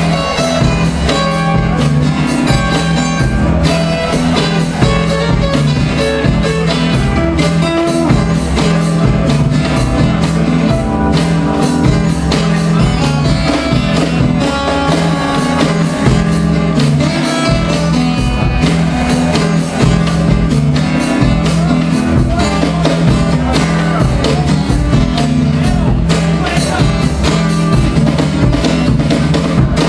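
Live blues-rock played on acoustic guitar with drums keeping a steady beat.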